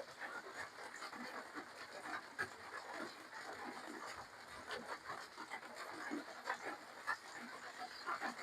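Close-miked eating sounds: chewing, lip smacking and slurping of spicy seafood papaya salad with khanom jeen rice noodles, as a run of small irregular wet clicks.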